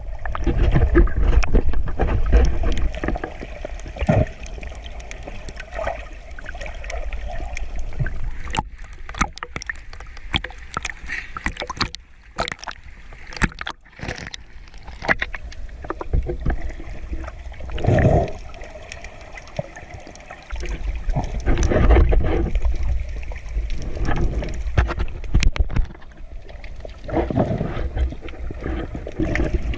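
Rough seawater sloshing and churning around the camera, with low rumbling surges and gurgling. About eight to sixteen seconds in, the rumble drops away and a run of sharp clicks and crackles takes over before the surging returns.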